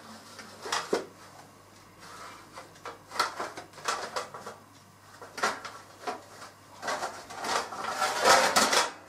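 Kitchenware being handled: irregular clatters and scrapes in several bursts, the loudest and longest near the end, stopping abruptly.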